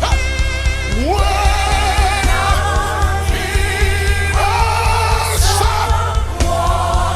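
Live gospel worship music: a voice slides up into long held, wavering notes, about a second in and again about four seconds in, over a band with a steady low bass pulse.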